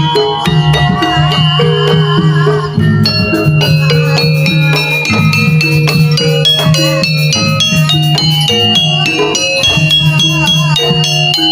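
Jaranan music from a live Javanese ensemble, playing continuously: many quick pitched percussion notes with rattling strokes over a steady low note, and a wavering melody line twice, about a second in and again near the end.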